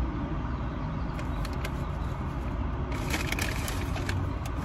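Crinkling and crackling from food being handled and eaten, in short clusters about a second in and again around three seconds in, over a steady low rumble.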